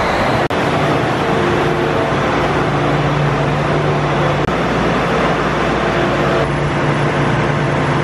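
John Deere S780 combine's engine running steadily at a loud, even pitch, with a steady hum under the noise. It is heard inside a large metal shed.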